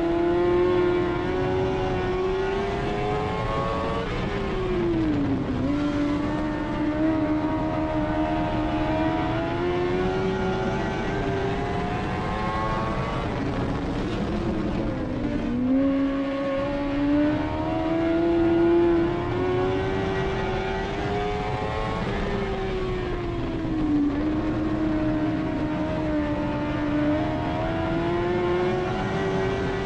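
Dirt-track modified race car's V8 engine heard from inside the cockpit under racing load. Its pitch climbs steadily down each straight, then drops sharply as the driver lifts for the turns three times before climbing again.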